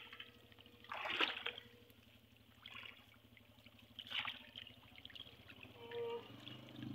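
Pabda catfish thrashing in a seine net in shallow pond water, with water trickling and splashing and two sharper splashes, about a second in and about four seconds in.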